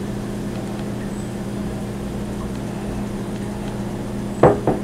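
Steady low hum of kitchen room tone. About four and a half seconds in, two quick knocks of glass dishware are heard as the emptied glass mixing bowl is handled over the glass baking dish.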